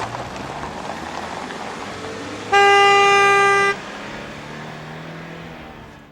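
A car horn honks once, a steady note lasting a little over a second, over the continuous noise of traffic or a running car.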